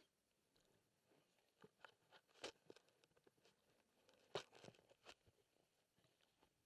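Near silence broken by faint, scattered clicks and knocks, the two loudest about two and a half and four and a half seconds in.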